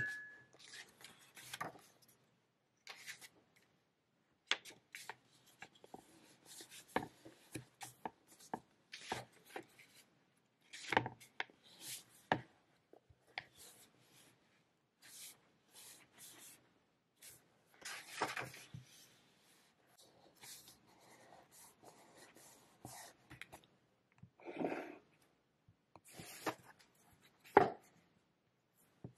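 Stiff blank pages of a new hardbound sketchbook being turned and pressed flat by hand: scattered short paper rustles and soft knocks of the book on the desk, the loudest near the end.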